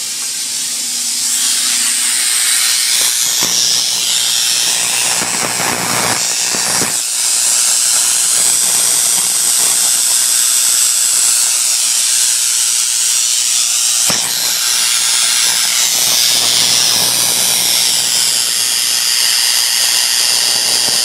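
Homemade Tesla coil running: a loud, steady hiss and buzz of corona discharge powering a corona motor, with a few sharp snaps about three, six and fourteen seconds in.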